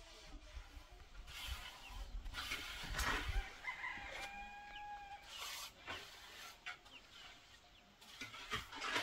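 A rooster crowing once, with the long held note of the call about four to five seconds in, among chickens clucking. A louder stretch of rustling noise with a low rumble comes just before the crow.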